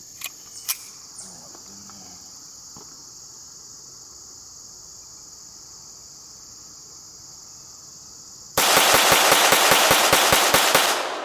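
Steady chirping of insects, with a few sharp clicks near the start. About nine seconds in, a Walther PPQ M2 .22 LR pistol fires a rapid string of shots lasting about two and a half seconds, the loudest sound, with an echo trailing off afterwards.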